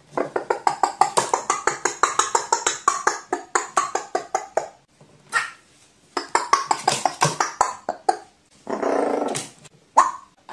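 Carrion crow making quick chicken-like clucking rattles, about eight notes a second, in two long runs. Near the end come a longer rough call and one short sharp note.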